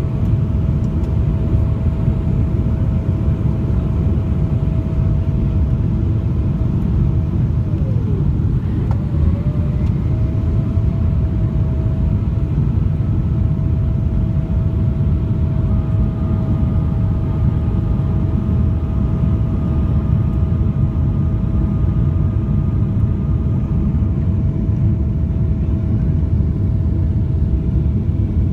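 Cabin noise inside a Boeing 777-300ER on approach: a steady deep rumble of airflow and its GE90-115B engines. A thin whine rides over the rumble, dipping in pitch about eight seconds in and coming back up a couple of seconds later. A second, higher whine joins for several seconds in the middle.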